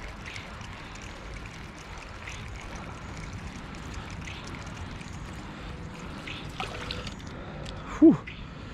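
Flowing river water with faint light ticks while a small trout is reeled in to the bank. About eight seconds in, a brief loud sound that falls sharply in pitch.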